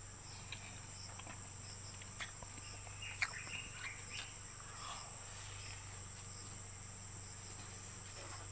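Steady high-pitched insect chorus, with a few light clicks about two, three and four seconds in.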